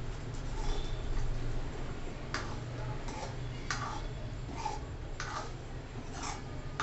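A spatula scraping and knocking against a pan as peas are stirred into a thick frying masala, in short strokes a little more than once a second that grow clearer about two seconds in.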